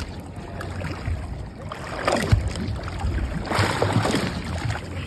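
Water splashing and sloshing against the boat's side as a large cubera snapper is held at the surface and pushed off, with two surges of splashing about two and three and a half seconds in, over a steady low rumble.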